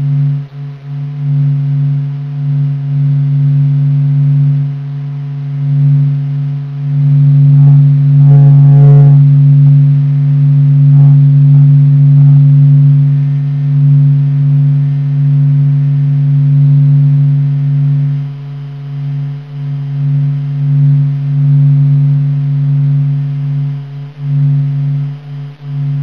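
NASA's sonification of the Sun's surface oscillations, with the SOHO spacecraft's recordings of solar vibrations sped up into the audible range. It is a steady low hum that swells and fades, with a brief flutter of higher tones about eight seconds in.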